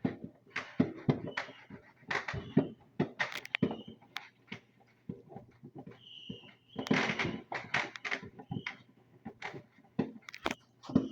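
Fireworks going off: irregular sharp pops and bangs with dense bursts of rapid crackling, heaviest about 2 to 3.5 seconds in and again about 7 seconds in.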